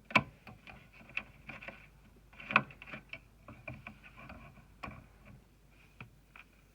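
Small hardware being handled by hand for an M.2 SSD install on a motherboard: irregular light clicks and taps, with three sharper knocks about a fifth of a second, two and a half seconds and five seconds in.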